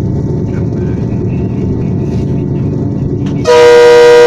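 Steady rumble of a train running along the track, then about three and a half seconds in a locomotive air horn starts sounding a loud, steady chord of several tones, the warning for a level crossing ahead.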